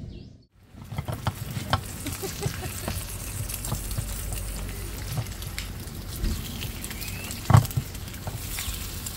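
Eggs frying in a small pan on a portable camping stove: steady sizzling with many small crackles, starting about a second in, with a silicone spatula working in the pan. One sharper knock comes about seven and a half seconds in.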